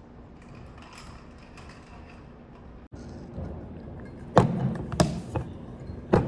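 Several sharp knocks and thuds, the loudest about four and five seconds in and another near the end, after a few seconds of faint light clicks.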